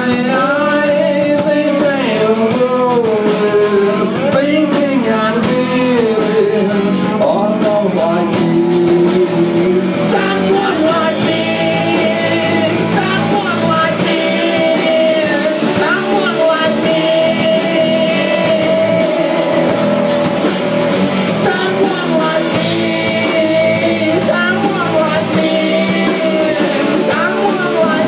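Live rock band playing: electric guitars, bass guitar and drum kit, with cymbals keeping time. A lead line bends up and down in pitch through the first ten seconds or so, then settles into steadier held notes.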